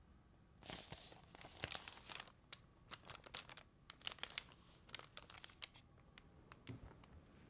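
Newspaper rustling and crinkling in someone's hands: a burst of rustling about half a second in, then a run of short, sharp crinkles and crackles for the next few seconds.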